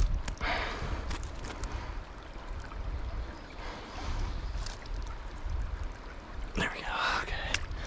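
Shallow stream running over rocks, with a low, fluctuating rumble on the microphone. A brief louder rush of water comes about half a second in and another near the end.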